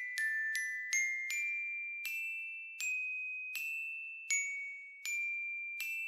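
Background music: a slow melody of high, bell-like struck notes, one at a time, each ringing on and fading before the next.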